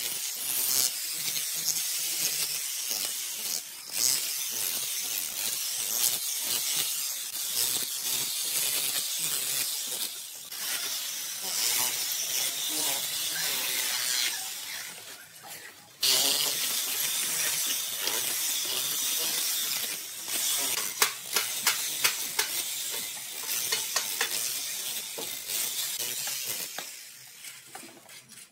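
Electric demolition hammer with a chisel bit chipping ceramic tiles off a concrete wall, with tile pieces cracking off and clattering down. The hammering stops briefly about halfway through, then starts again suddenly.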